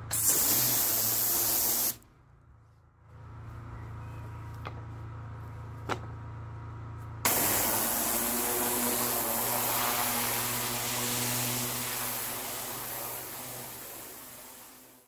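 Pressure washer lance blasting water onto paving slabs in two spells: a loud hiss of spray for about two seconds, then the trigger is let go and only the machine's low hum and a couple of clicks are heard. The spray starts again about seven seconds in and eases off near the end.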